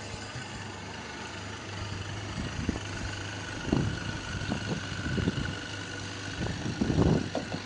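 Twin Honda 150 four-stroke outboard motors idling with a steady low hum. Several dull thumps come in the second half, the loudest about seven seconds in.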